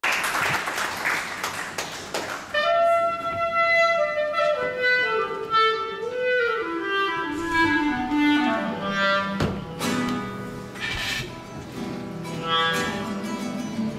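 Clarinet and acoustic guitar playing live as a duo. After about two seconds of clapping, the clarinet enters with a melody that falls slowly in steps over the guitar's accompaniment.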